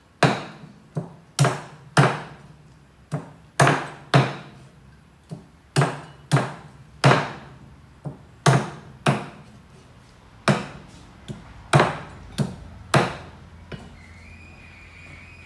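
Meat cleaver chopping raw chicken on a wooden cutting board: about nineteen sharp chops at an uneven pace, roughly two a second, some lighter than others, stopping about thirteen seconds in.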